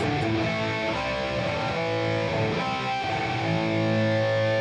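Electric guitar played through a Boss Katana Gen 3 212 amp, strumming chords that ring out, changing chord a few times. The amp's contour center frequency is turned down to its minimum.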